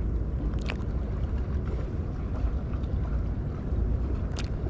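Steady low rumble of wind buffeting the microphone over open water, with two brief faint clicks, one about a second in and one near the end.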